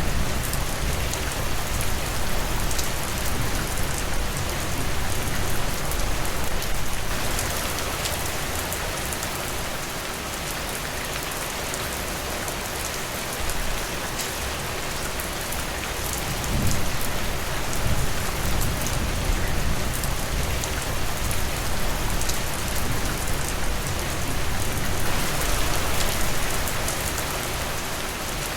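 Steady rain falling, with many separate drop hits over a continuous hiss and a low rumble underneath. It eases slightly about a quarter of the way in and fills out again near the end.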